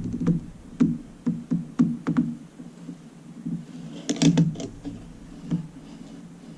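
Background electronic music: steady low synthesizer tones with soft percussive hits, busier in the first two seconds, then sparser, with a cluster of sharper clicks about four seconds in.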